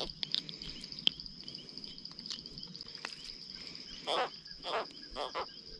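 Insect chorus: a steady high trill with a pulsing chirp beneath it, and four short rasping sounds in the last two seconds.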